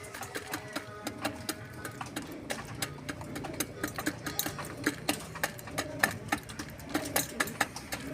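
Pigeons pecking at scattered grain: a rapid, irregular patter of beak taps on a hard surface.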